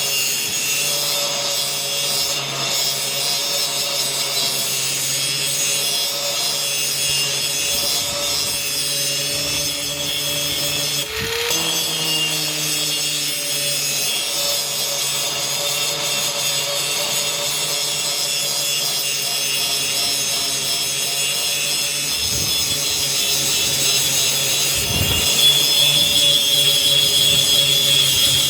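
Power grinder running steadily with its wheel grinding the steel edge of an axe blade, a continuous high grinding hiss over the motor's hum. The grinding briefly dips and wavers in pitch about eleven seconds in.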